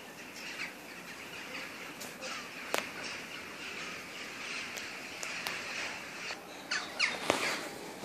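Parakeet calls over a steady background of bird chirping, rising near the end into a run of loud, harsh squawks that slide down in pitch. A single sharp click comes about three seconds in.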